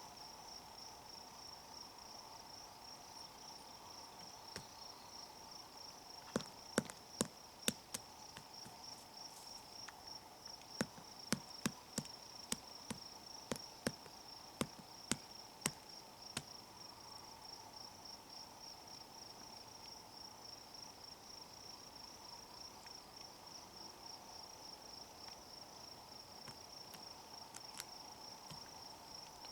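Woodpecker pecking at wood in separate sharp taps, roughly half a second apart: four about six seconds in, then about a dozen more a few seconds later. A steady high chirring of insects runs underneath.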